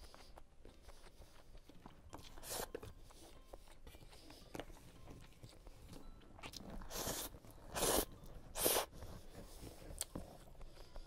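Close-miked eating of stir-fried noodles: soft chewing and mouth sounds, with a few loud, short bursts of mouth noise, the loudest about eight and nine seconds in.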